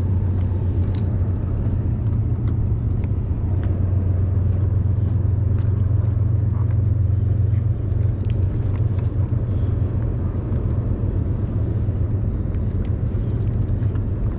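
Steady low rumble, with a few faint clicks over it.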